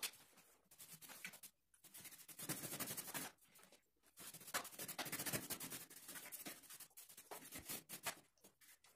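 A brush scrubbing dust off a bicycle's frame and wheel in quick scratchy strokes. The strokes come in short runs, with two longer spells of rapid scrubbing in the middle.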